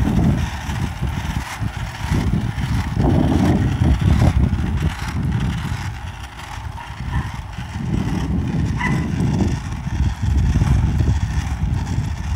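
An uneven low rumble of small board wheels rolling over asphalt, mixed with wind buffeting the microphone as it moves along.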